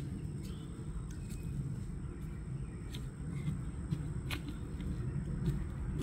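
Outdoor ambience: a steady low rumble with a few faint clicks, the clearest about four seconds in, and a faint steady high tone.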